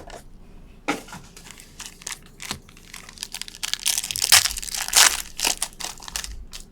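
Plastic wrapper of a trading card pack crinkling and tearing as the pack is opened. The crinkling comes in irregular bursts, loudest about four to five seconds in.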